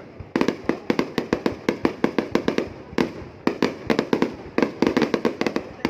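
Fireworks display going off in rapid volleys of sharp bangs, several a second, with brief pauses between volleys.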